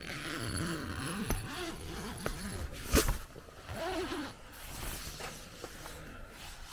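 Tent door zipper being opened, with the tent's fabric rustling, and one sharp click about three seconds in.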